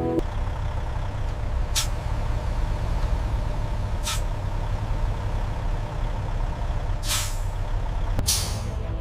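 Heavy diesel vehicle running with a steady low rumble, punctuated by four short hisses of released air like air-brake releases, the last two louder.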